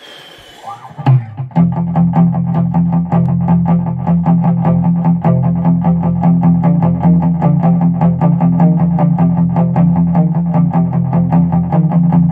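Gretsch Rose Falcon electric guitar playing a fast boogie riff, a driving repeated pattern on the low strings. A few loose notes come about a second in, and the steady riff starts about a second and a half in.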